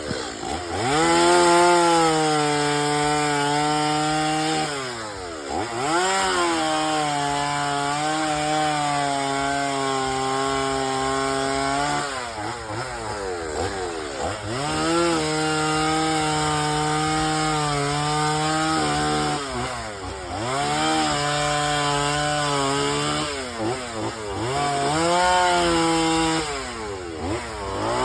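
Chainsaw cutting into wood, holding a steady pitch for several seconds at a time under load. Between cuts the engine drops back and revs up again, four times.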